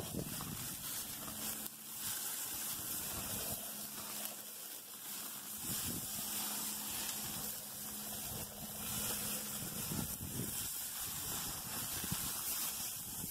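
Hamburger patties sizzling on a gas grill fitted with lava rocks, a steady hiss, as grease drips and flares up in small fires beneath the meat.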